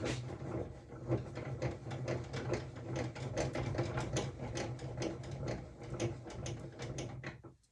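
Small electric saw running and cutting wood: a steady motor hum with dense irregular clicking and rattling as the blade bites, cutting off abruptly near the end.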